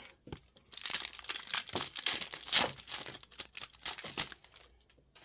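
Plastic wrapper of a Panini Prizm basketball card pack crinkling as it is torn open by hand: a dense run of crackling for about three and a half seconds that then stops.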